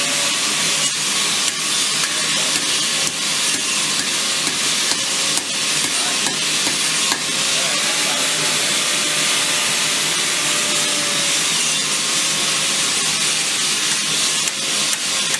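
Loud, steady hiss with a few faint clicks.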